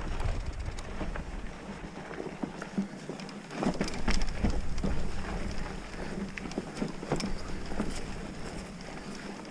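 Mountain bike rolling over a dirt trail: irregular ticks and rattles from the tyres, chain and frame, louder about four seconds in, with wind rumbling on the microphone at the start.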